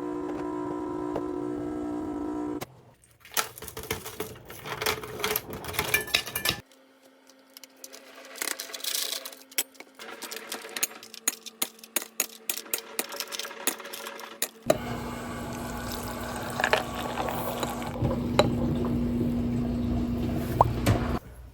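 Home kitchen cooking sounds over several cuts: a steady appliance hum, then irregular clinks and clatter of dishes and utensils, then a louder steady whirring noise with a hum and scattered clinks.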